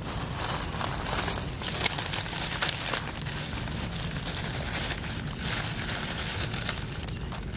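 Dry fallen leaves crinkling and crackling as a hand works through the leaf litter to pick a morel mushroom, with small irregular crackles throughout.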